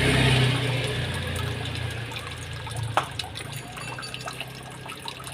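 Submersible pond pump running in water: a steady low motor hum under gushing, splashing water, loudest near the start and easing off a little. A single sharp click about three seconds in.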